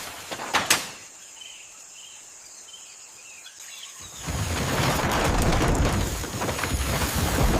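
Outdoor nature ambience: a few short bird chirps during a quieter stretch, then a loud, even rushing noise with a low rumble from about four seconds in.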